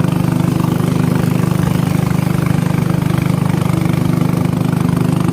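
A small boat's engine running steadily at a constant speed, with a fast, even throb.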